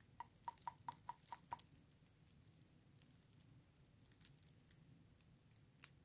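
Near silence with faint, sharp little clicks. A quick run of about eight comes in the first second and a half, about five a second, then a few scattered clicks later.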